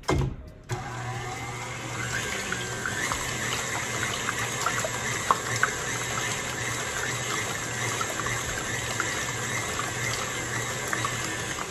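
KitchenAid Classic tilt-head stand mixer: a short knock as the head comes down, then just under a second in the motor starts and runs steadily, its wire whisk beating raw egg whites in a stainless steel bowl with a wet, splashy sound and light ticking. This is the first stage of whipping, the whites turning to a loose foam.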